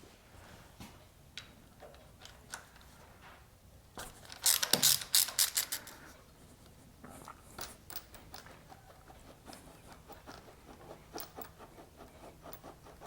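Metallic clicking and clattering of hand tools and carburettor parts being worked, with a burst of loud, rapid clicks about four to six seconds in, then a run of lighter, quicker ticks.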